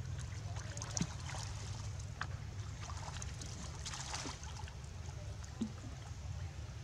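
Macaques splashing and paddling in pond water at a stone edge: small sloshes and drips, with a sharper splash about four seconds in, over a steady low rumble.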